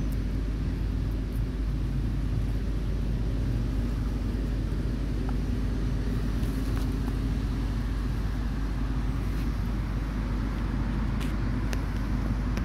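A steady low outdoor rumble with a few faint clicks over it.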